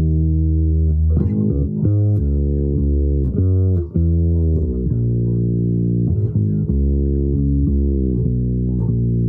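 Improvised solo playing on a low-pitched string instrument: one long held note, then a run of notes changing about every half second, with a slide in pitch about four seconds in.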